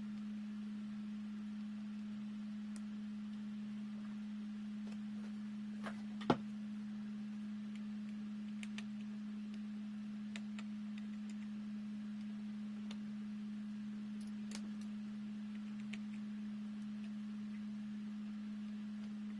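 A steady, unchanging low tone like a hum, with a few faint clicks and one sharper click about six seconds in.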